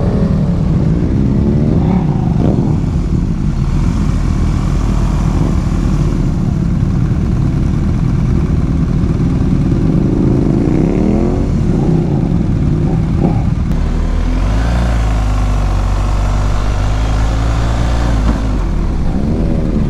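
Motorcycle engines running at low speed as the bikes roll in, the engine note rising and falling a few times, then settling into a steady low idle about three-quarters of the way through.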